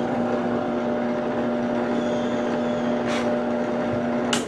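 Benchtop drill press running with a steady hum, its bit spinning. The hum cuts off suddenly near the end.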